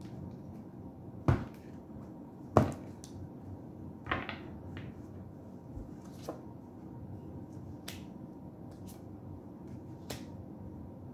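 Tarot cards being handled and laid down on a table: a few sharp taps and card snaps, the two loudest about one and two and a half seconds in, then softer clicks over quiet room tone.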